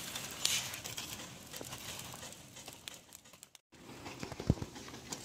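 Burning lumps of charcoal being pushed and spread along a brick trench grill with a metal rod: light scraping, crackling and clinking of the coals. The sound breaks off for a moment about three and a half seconds in, then the crackling goes on.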